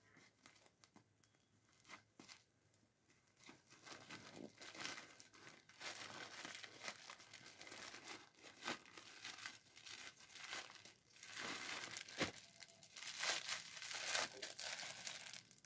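A parcel's plastic packaging being cut open with scissors and unwrapped: a few faint snips at first, then continuous crinkling, rustling and tearing of plastic from about three seconds in, loudest near the end.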